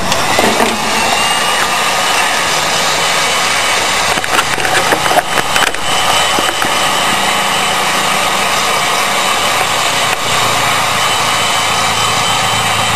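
Heat gun blowing hot air steadily onto PVC pipe to soften the plastic for bending, switched on at the start. A few light clicks of handling come about four to six seconds in.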